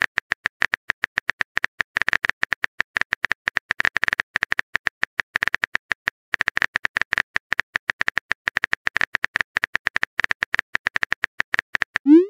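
Phone keyboard typing clicks: a rapid run of short taps as a text message is typed out, one per key. Near the end a short rising swoosh, the message-send sound.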